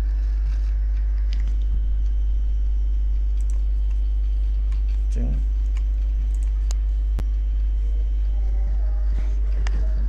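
Steady low electrical hum, with a few sharp computer mouse clicks and short snatches of voice, one about five seconds in and more near the end.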